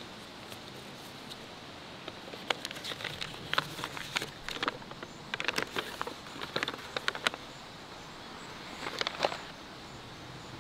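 A folded sheet of paper being unfolded and handled, crackling and rustling in a run of quick crisp clicks from about two seconds in, with another brief rustle near the end, over a faint steady background hiss.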